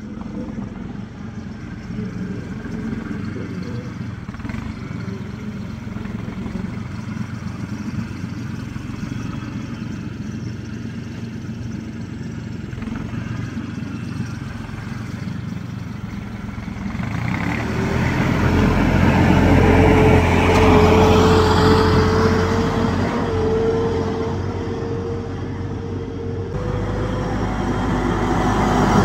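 Tractor engine running steadily. About two-thirds of the way through it gets louder and a steady whine comes in on top.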